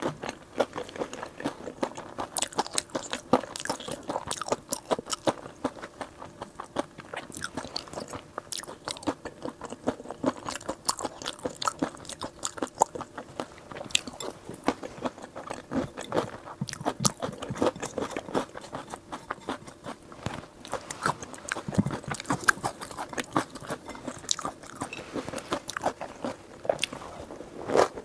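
A person chewing crunchy food close to the microphone: a dense, continuous run of crisp crunches and bites.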